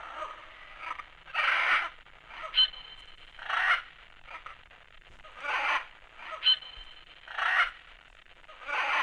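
The 'Rainforest' track of a Soothing Sounds 20 clock radio playing through its small speaker: a short, low-quality loop of screeching and howling animal calls, with a screech about every two seconds and a short high call between some of them.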